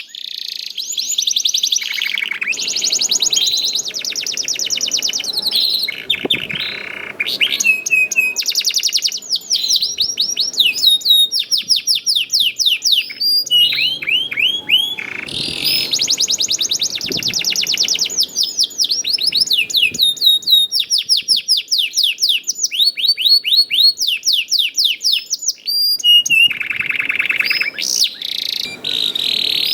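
Domestic canary singing vigorously in long, fast trills of repeated chirps and downward-sweeping notes, switching from one rolling phrase to the next every second or two.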